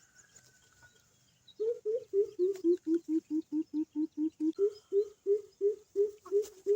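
Greater coucal call: a long, even series of deep hoots, about three a second. The series breaks off for about a second and a half at the start, then resumes.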